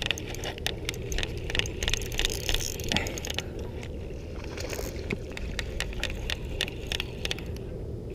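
Spinning reel cranked right next to the microphone, giving quick irregular clicks and rattles as a hooked bass is reeled in on a drop shot rig.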